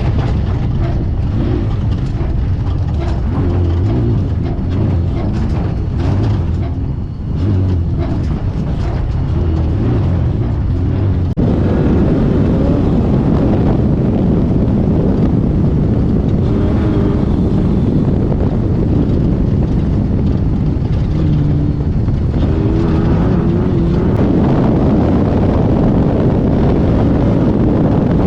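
Off-road race car's engine running hard at speed, with wind and chassis noise, heard from inside the car. It eases off briefly about seven seconds in and gets louder again at about eleven seconds.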